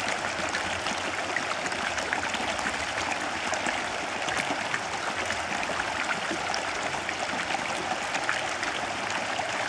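Shallow, rocky river at low summer level, water running over and between stones in small riffles: a steady babbling rush.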